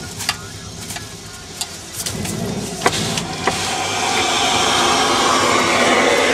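Car driving slowly, with engine and road noise heard from inside. A few sharp clicks come in the first half, and a broad rush of noise swells over the last few seconds.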